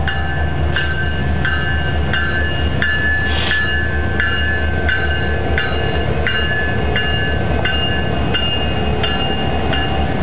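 Norfolk Southern diesel freight locomotives passing close by at a grade crossing, their engines rumbling steadily, with a bell clanging at an even pace about every 0.7 seconds.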